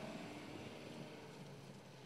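Mercedes-Benz GLK 250 BlueTEC's four-cylinder diesel engine running as the SUV drives away across rough ground, its sound fading and growing faint toward the end.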